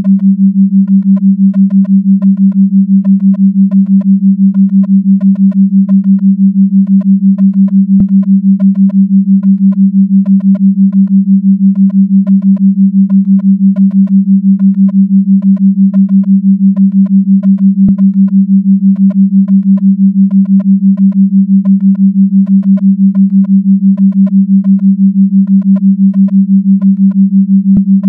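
A steady synthetic sine tone of about 200 Hz, pulsing evenly about six times a second: a 6 Hz flicker/entrainment tone. Faint higher pips sound in the same rhythm.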